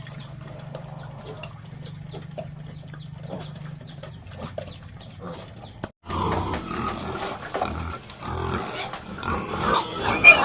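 Pigs in their pen. For the first six seconds there is a steady low hum with scattered small clicks. Then, after a sudden break, louder and busier pig sounds follow.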